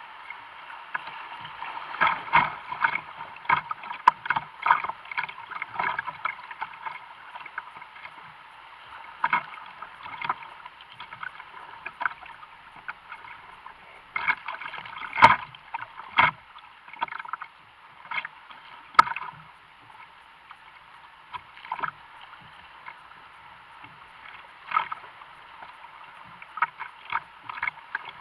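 Kayak being paddled down a fast, high creek: a steady rush of water broken by frequent irregular splashes and slaps of paddle strokes and water against the boat, sounding thin and muffled.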